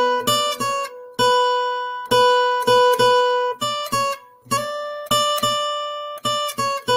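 Cutaway acoustic guitar fingerpicked solo, playing a melody in single plucked notes with low bass notes under them. Several notes ring for about a second in the middle, and quicker notes follow near the end.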